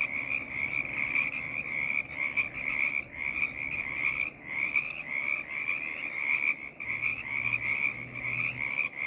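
Chorus of many frogs calling at once, their overlapping calls merging into a dense, continuous pulsing din with no pauses.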